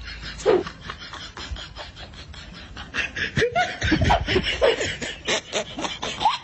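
Snickering laughter in quick, repeated bursts, heaviest from about three seconds in.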